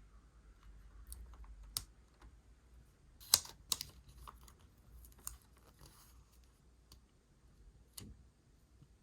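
Stationery and paper being handled on a desk: scattered light clicks and taps, the sharpest a pair about three seconds in and another near the end.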